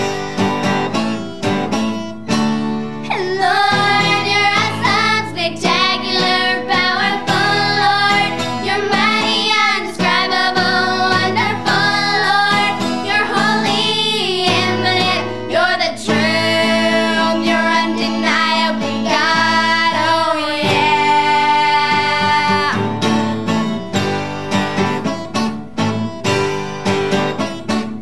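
A group of young girls singing a song in unison to a strummed acoustic guitar. The guitar plays alone for the first few seconds, the voices come in and end on a long held note near the end, and the guitar carries on alone after it.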